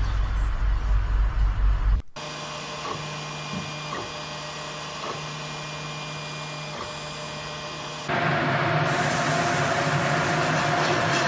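Low vehicle rumble for about two seconds, then a sudden cut to the steady whirring hum of a 3D printer's motors as it extrudes paste, with faint ticks. Near the end a cut to a steady hiss from a frying pan on a lit gas burner.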